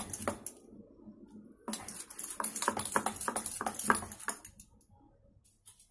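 A metal spoon beating thick malpua batter in a steel bowl: quick, irregular clicks and scrapes, strongest from about two to four seconds in, then fading away.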